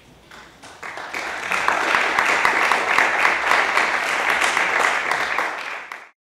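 Audience applauding: many hands clapping, building up over the first second or so and then holding steady, cut off abruptly near the end.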